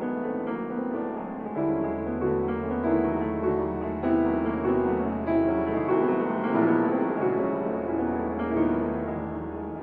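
Organ playing a slow piece of held chords over long sustained bass pedal notes; the pedal stops about six seconds in and comes back nearly two seconds later.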